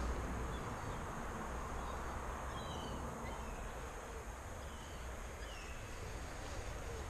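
Steady outdoor background noise with a low rumble that fades over the first second, and a few faint short bird chirps in the middle.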